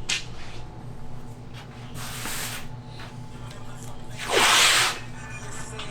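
Aerosol spray paint can sprayed in short hissing bursts, a softer one about two seconds in and a louder one about four and a half seconds in, each lasting about half a second. A steady low hum runs underneath.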